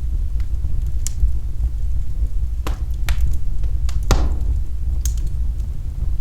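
Wood fire burning in a fireplace: a steady low rumble of flames with sharp crackles and pops, about five in all, the loudest about four seconds in.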